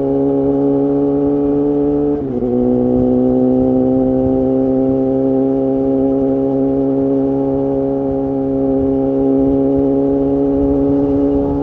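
Suzuki GSX-R750's inline-four engine heard through an Akrapovic header and Spark silencer, running under way at steady revs. About two seconds in the note dips briefly and drops to a lower pitch, then climbs slowly again.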